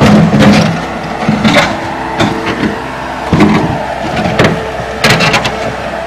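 Tracked skid-steer loader's engine running steadily while its bucket pushes broken driveway concrete. The chunks scrape and clatter, with repeated sharp knocks and a quick cluster of them about five seconds in.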